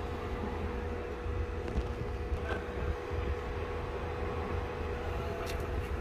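Steady low rumble with a faint constant hum and a few faint clicks.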